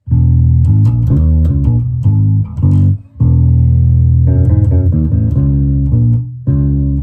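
Warwick RockBass Corvette $$ bass guitar with both pickups switched to parallel, played through a small 8-inch 25-watt combo amp: a run of plucked notes, with a short break about three seconds in.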